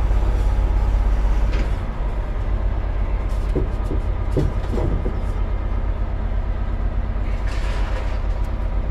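A lorry's diesel engine running to drive its truck-mounted hydraulic crane, a steady low rumble that eases off a little about two seconds in.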